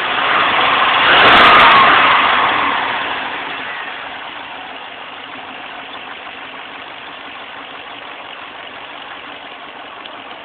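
Chevrolet Corvette C5's 5.7 L LS1 V8 engine revved once, peaking about a second and a half in, then settling back to a steady idle. This is the rev range (2000 rpm and up) where the owner hears an undiagnosed rattling, tapping noise from under the intake area.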